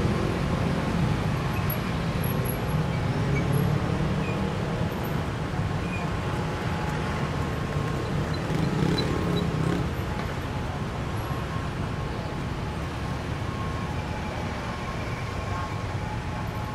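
Busy city road traffic: a steady rumble of vehicle engines and tyres, heaviest in the first ten seconds and easing a little after.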